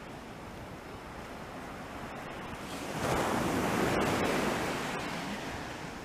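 Small waves washing onto a sandy beach in a steady rush of surf. About halfway through, a wave breaks louder and its wash then fades back down.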